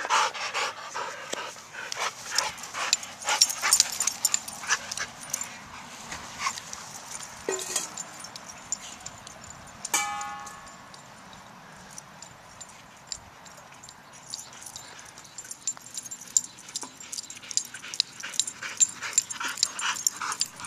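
A chocolate Labrador-type dog panting close by in short, quick breaths. About ten seconds in comes a single short, high yip from a dog. The close panting comes back near the end.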